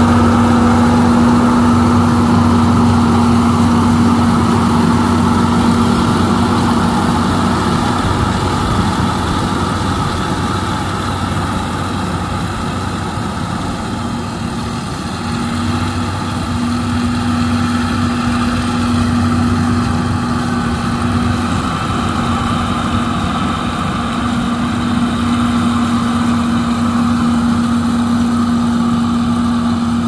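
Kukje KC100 six-row combine harvester running steadily as it cuts and threshes rice, with a constant diesel engine drone and machinery hum. The hum drops away briefly twice.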